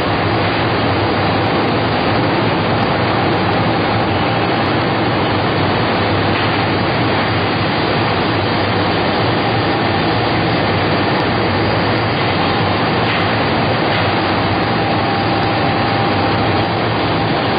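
Baby diaper production machine running: a loud, steady mechanical roar with a faint constant whine.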